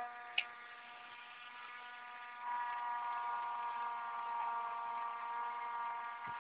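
7.2 V electric motor and propeller of a homemade RC hovercraft running at a steady pitch, a buzzing whine that gets louder about two and a half seconds in. A single sharp click about half a second in.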